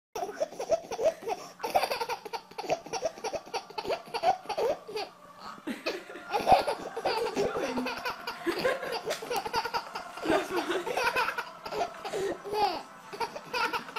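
A baby laughing hard in many short, repeated bursts.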